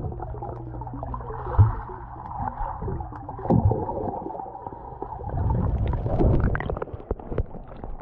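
Muffled underwater sound picked up by a submerged action camera in a pool: a steady low hum and rumble with gurgling, a few gliding tones, and scattered clicks and knocks.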